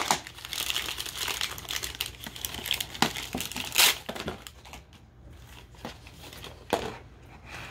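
Toy packaging crinkling and tearing as it is unwrapped by hand, with sharp clicks. The rustling dies down about halfway through, leaving a couple of isolated taps.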